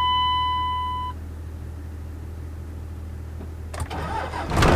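A steady dashboard warning tone stops about a second in. Near the end, the 2002 Dodge Ram's 24-valve Cummins 5.9 L inline-six turbo diesel cranks briefly and fires up, catching quickly and settling into a run after the wait-to-start intake heater cycle.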